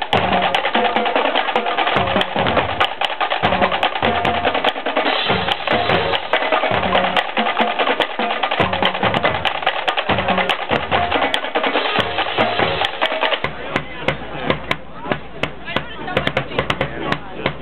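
Marching drum line playing: rapid snare strokes over bass drum hits in short groups. About 13 seconds in, the bass drum pattern changes.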